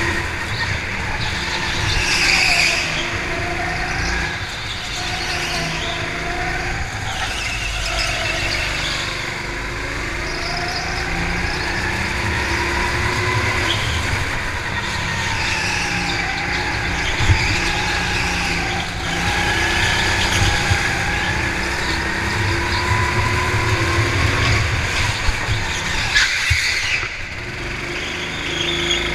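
Go-kart engine heard from on board while lapping a track, its pitch rising and falling every few seconds as it speeds up and slows for corners, with tyres squealing through the turns.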